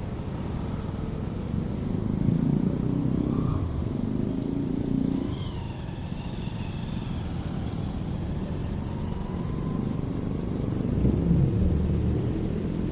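Urban outdoor ambience dominated by road traffic: a steady low rumble of vehicles that swells as cars pass about two seconds in and again near the end. A faint high call briefly rises and falls a little past the middle.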